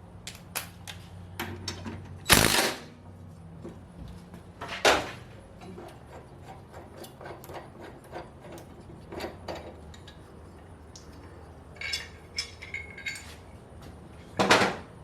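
Hand-work noises of tools and hard parts being handled: a run of light clicks and knocks, with three louder knocks about two, five and fourteen and a half seconds in, and a few short ringing clinks near twelve seconds.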